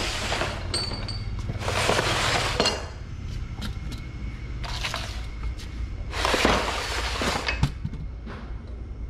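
Hard metal parts clinking and clattering as they are handled and set down, in several short bursts over a low steady hum.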